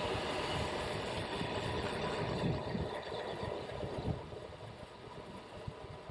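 Wind rushing over the microphone, with tyre rumble from a road bike rolling along tarmac. It starts suddenly, stays loud for about four seconds, then drops to a lower steady rush.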